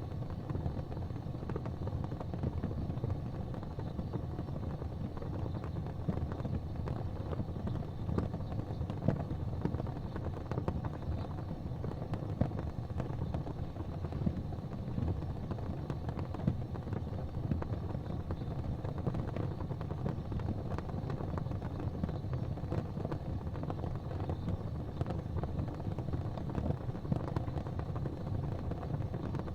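Gas fireplace flames burning with a steady low rumble, dotted with occasional small pops.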